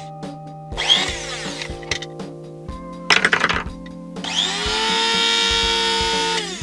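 Krups blade coffee grinder's motor spinning up in a short run and a brief burst, then running steadily for about two seconds before cutting off, its blades now turning freely after an over-tightened screw was loosened. Background music underneath.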